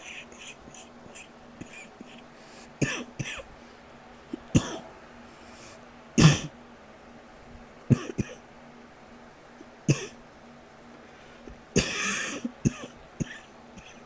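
A person coughing, held back to keep quiet: a series of short coughs every second or two, the loudest about six seconds in and a longer run of coughing near the end.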